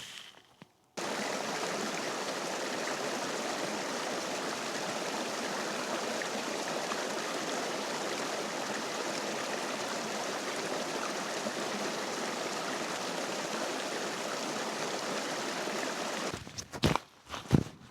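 Running water of a small stream: a steady, even rushing that cuts in abruptly about a second in and stops suddenly near the end. A few sharp thuds follow it.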